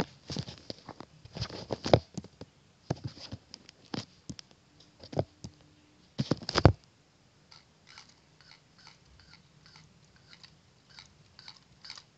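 Plastic Lego Technic parts clicking and knocking as the model is handled and its mechanism worked by hand: a run of louder knocks in the first half, then lighter, scattered clicks.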